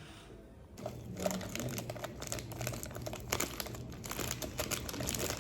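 Plastic parcel packaging crinkling and crackling as it is handled and opened, starting about a second in.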